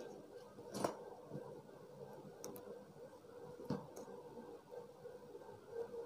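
Faint handling sounds of tweezers plucking loose threads from a cut in denim jeans: a few soft, short clicks, the loudest about a second in.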